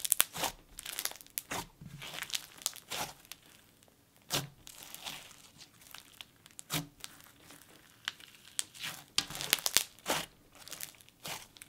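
Thick snow fizz slime being squeezed and kneaded by hand, giving off irregular bursts of crunchy, sizzly crackling.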